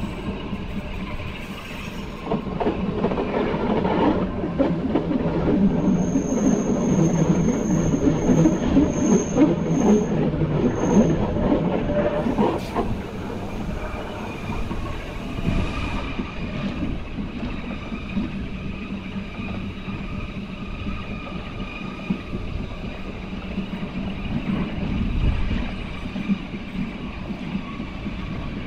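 Narrow-gauge Bernese Oberland Railway rack (cogwheel) train running downhill, with a steady rumble of wheels and running gear on the rack track. A thin, high wheel squeal comes and goes from about six to eleven seconds in, while the rumble is at its loudest.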